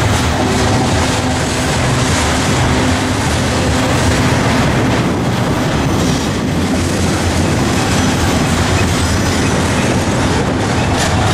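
A double-stack intermodal freight train's well cars rolling past close by, with a steady, loud rumble and clatter of steel wheels on rail that does not let up.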